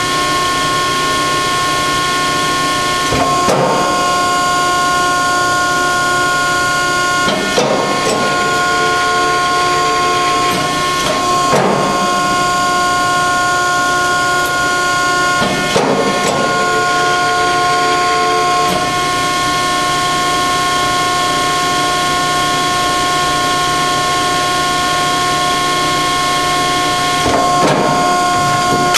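Hydraulic pump of a 70-ton Betenbender hydraulic shear running, a steady whine of several tones over a hum, with a few brief louder swells every few seconds.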